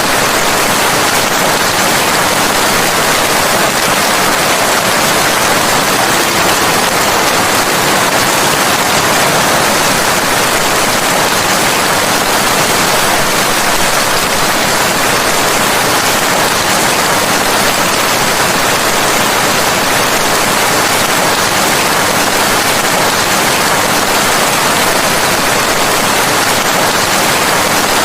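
Steady, dense rain hiss, even and unbroken, with no separate drops or thunder standing out.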